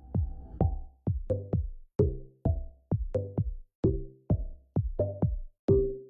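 Electronic background music with a steady drum-machine beat, a little over two beats a second, over pitched synth notes.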